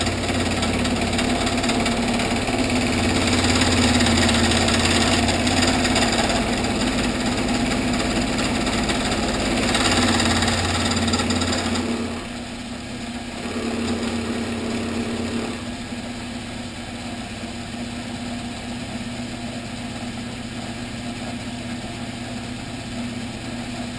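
Vertical milling machine running, its cutter taking a flat off a metal air-manifold block. The rough cutting noise lasts about twelve seconds and then drops away, leaving a brief lighter cut and the spindle motor's steady hum.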